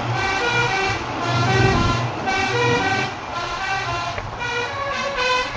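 Basuri musical vehicle horn playing a quick tune of short, stepped notes, driven by its melody module.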